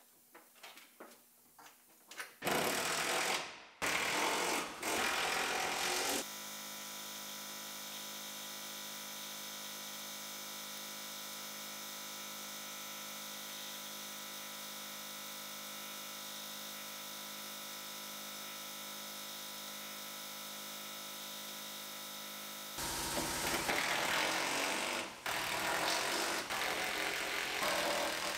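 Cordless impact driver running in the screws that hold a curtain airbag to a pickup's roof rail: two short runs a few seconds in, then longer running near the end. Between them, a steady hum with several tones.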